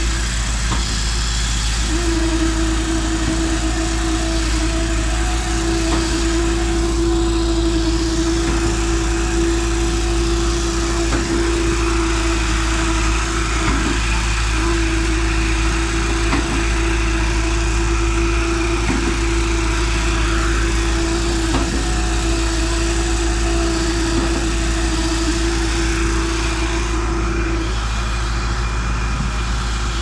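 Diesel engine of a trailer-mounted concrete mixer pump running steadily under load while concrete is pumped, with a steady whine that cuts out briefly a few times.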